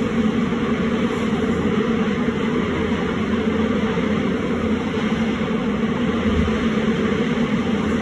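A New York City 7 train subway car running at speed, heard from inside the car: a steady rumble of wheels on rail with a constant rushing hiss.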